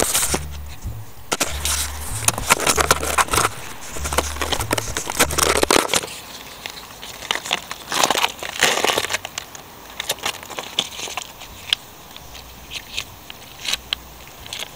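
Handling noise of a car's cabin pollen filter and its plastic frame: a run of crackles, scrapes and sharp clicks, thickest in the first half and thinning out after about ten seconds.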